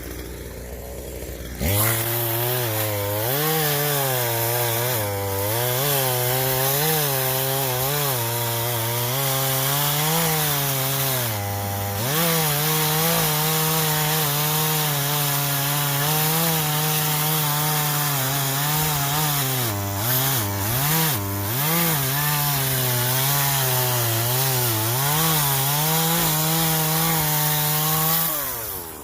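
Craftsman 42 cc two-stroke gas chainsaw running at high revs and cutting wood. Its pitch wavers up and down and sags briefly a few times as the chain takes the load. It starts abruptly about two seconds in and drops away near the end.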